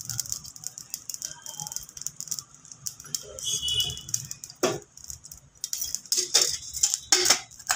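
Oil heating in a nonstick kadai, crackling with scattered pops. Several louder pops come in the second half.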